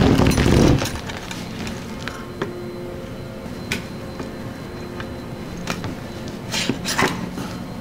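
A flexible corrugated dust-collection hose and its plastic dust cover being handled and fitted onto a machine's spindle head: a loud rustling scrape in the first second, then a few light clicks and knocks as the cover is worked into place.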